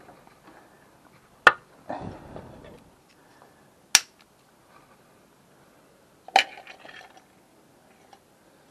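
Three sharp clinks of hand tools being knocked or set down on a hard surface, about two and a half seconds apart, with a brief scraping shuffle after the first and a short rattle after the last.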